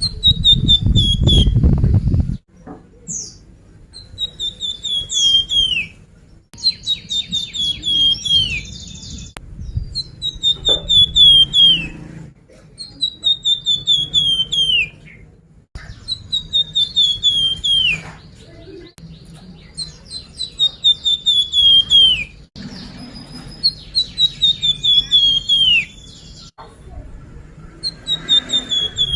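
Flamboyan songbird song, played as a lure recording: repeated phrases of quick, sharp chirps that step down in pitch, a phrase every two to three seconds. A loud low rumble covers the first two seconds.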